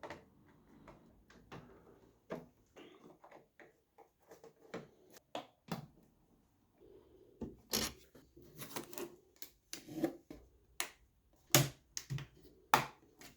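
Irregular clicks and light knocks of hard plastic parts being handled and seated as the AMS filament unit is fitted on top of a Bambu Lab P1S 3D printer, busier in the second half.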